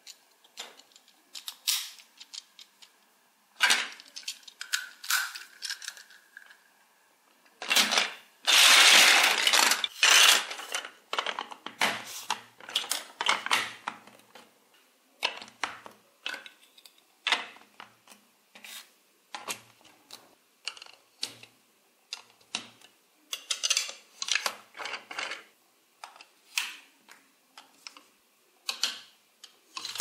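Large plastic toy building bricks clicking and clattering as hands rummage through a pile of pieces and snap bricks and gear wheels together. A longer burst of rattling comes about eight seconds in.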